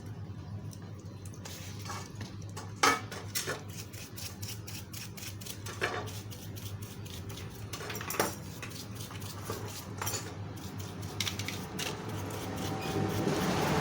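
Small metal engine parts and tools clinking and knocking as they are handled, with a sharp knock about three seconds in. A steady low hum runs underneath, and a rushing noise builds near the end.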